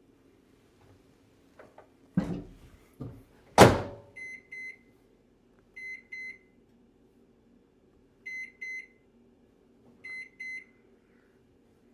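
Microwave oven door shut with a thump and then a loud bang, followed by keypad beeps: four pairs of short, high beeps a second or two apart as the cook time is keyed in.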